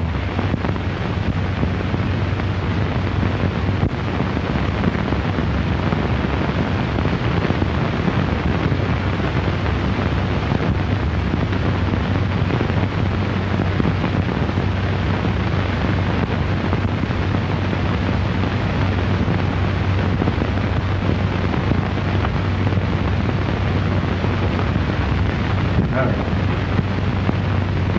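Steady hiss and crackle of an early optical film soundtrack, with a constant low hum, and no dialogue or music over it.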